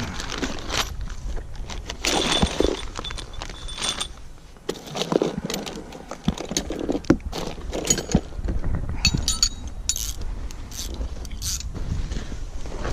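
Metal parts and tools clinking, rattling and knocking in irregular handling, with a few brief metallic rings, over a steady low rumble.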